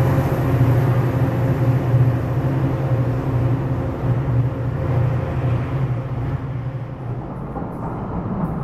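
MBTA commuter rail diesel locomotive running under power as the train pulls away, its engine drone steady at first, then fading over the last few seconds as it recedes.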